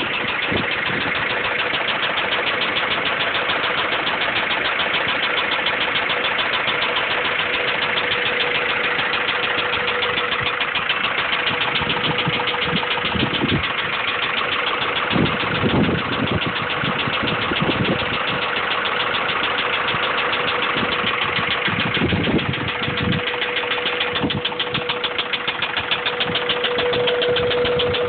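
Honda B16 DOHC VTEC inline-four engine running steadily with a rapid, regular knock under a steady whine: the rod knock of a worn connecting-rod bearing.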